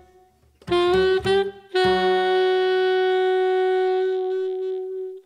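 Jazz quartet of saxophone, guitar, bass and drums ending a tune. After a brief pause come a couple of short ensemble hits, then the saxophone holds one long final note over a low note. The low note stops partway, and the sax fades out near the end.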